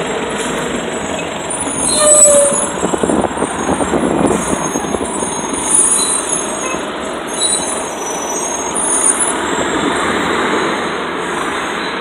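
Nova Bus RTS city transit bus pulling away from its stop, its diesel engine running under street traffic noise. About two seconds in there is one brief, sharp, loud sound, the loudest moment.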